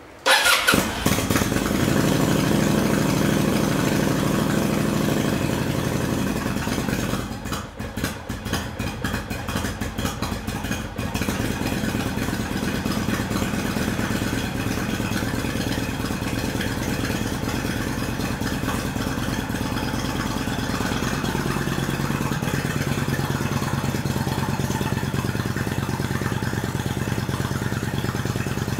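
Kawasaki VN800 Vulcan V-twin with debaffled Remus pipes firing up on a cold start with a bit of choke, then running at a fast idle. It runs raggedly for a few seconds about seven seconds in, then steadies, and its idle settles lower a little after twenty seconds in.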